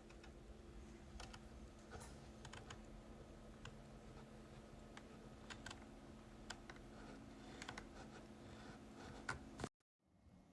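Faint, irregular clicking, a few clicks a second, over a steady low hum; it cuts off abruptly near the end.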